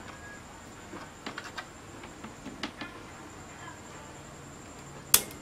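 Small clicks and soft rustles of a power cable being handled and moved on a wooden table, then one sharp, loud click about five seconds in. A faint steady high tone runs underneath.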